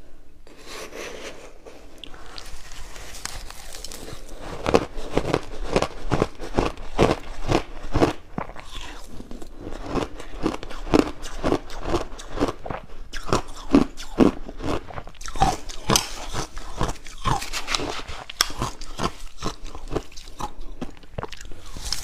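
Close-miked biting and crunching of frozen purple ice, a quick run of crisp crunches, roughly two a second, that gets louder after the first few seconds.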